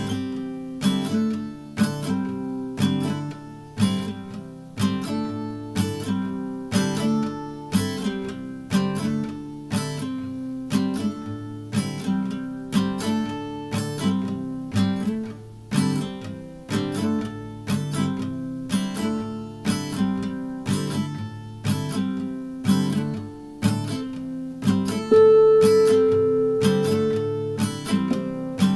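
Instrumental music: an acoustic guitar strummed and plucked in a steady rhythm, with no singing. A long held higher note comes in near the end.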